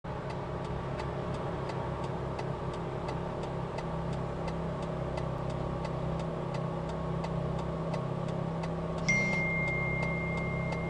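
Car engine idling at a standstill, with a steady ticking about three times a second. About nine seconds in, a steady high beep starts and holds on.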